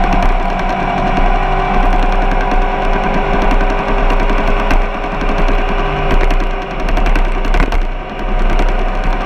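A vehicle's engine running loud and steady, holding nearly constant revs, with a dense mechanical rattle under the engine note.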